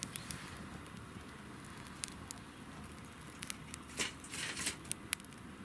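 Wood campfire crackling, with scattered sharp pops and snaps over a low steady rumble, busiest about four to five seconds in.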